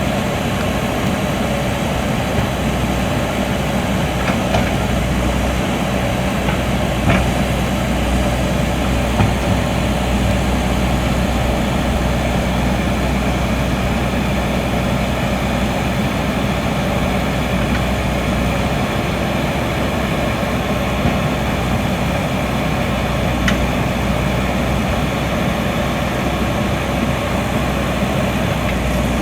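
JCB backhoe loader's diesel engine running steadily, with a few light knocks.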